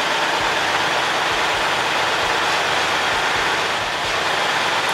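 Kubota L3301 tractor's three-cylinder diesel engine idling, a steady unbroken running noise.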